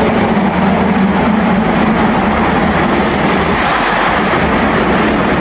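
Steady road traffic noise from a busy street, a constant rush of vehicles with a low engine hum underneath.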